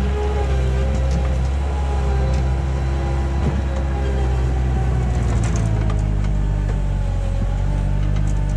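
Bobcat 864 tracked skid steer's diesel engine running steadily while the machine is driven, with a whine from the hydraulic drive that rises and falls in pitch about halfway through and again near the end. The machine is being test-run on its newly installed rebuilt drive motor.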